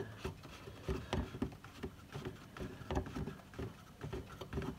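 Plastic pressure cap being screwed back onto a Chevy Volt's coolant reservoir, giving a scatter of small clicks and plastic scrapes as it turns.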